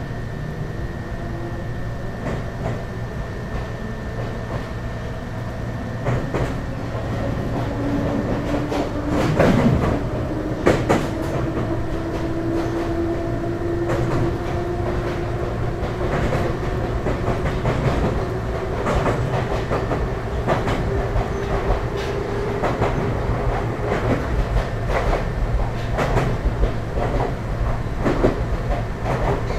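Ryutetsu 5000-series electric train pulling away and accelerating, heard from inside the car. Its motor tone rises slowly in pitch, the wheels click over the rail joints, and there are two louder knocks about ten seconds in.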